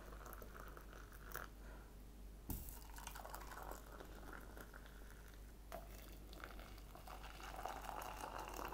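Hot water poured from a kettle into camping mugs one after another, a faint trickle, with a short knock about two and a half seconds in.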